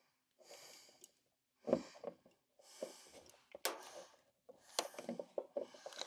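Faint handling sounds of a plastic appliance start switch being pushed onto its push-to-start knob: soft rustles and a few sharp small clicks, the clearest about two-thirds of the way through.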